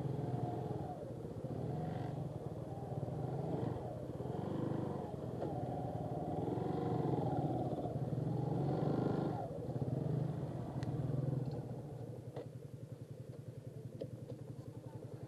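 Motorcycle engine idling with a steady low putter. Voices wander over it during the first half, and near the end the idle carries on more quietly with an even pulse.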